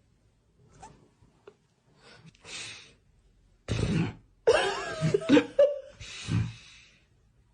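A person's voice in about five loud, breathy bursts with wavering pitch, after a few faint breaths.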